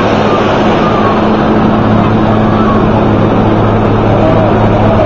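Search-and-rescue helicopter running steadily, loud and close, a constant engine and rotor drone with a low hum.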